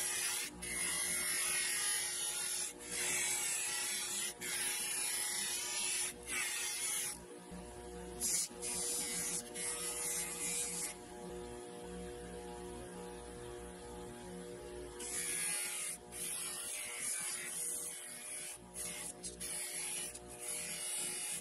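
Bench grinder motor running with a steady hum while a small part is held against its spinning abrasive wheel, giving a hissing grind that breaks off briefly several times and eases for a few seconds about halfway through.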